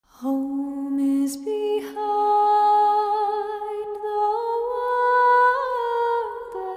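Slow, calm music: a melody of long held notes, moving up and down in pitch every second or two.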